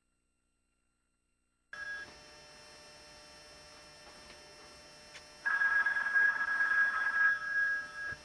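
Telephone ringing: a brief tone just under two seconds in, then one long electronic ring starting about five and a half seconds in, over a faint line hiss.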